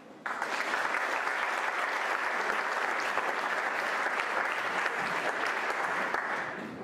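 Audience applauding, a dense patter of many hands clapping that cuts in abruptly and dies away near the end.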